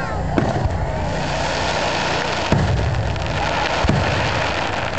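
Aerial fireworks shells bursting: three sharp bangs, one near the start, one about halfway and one a little before the end, over a steady hiss.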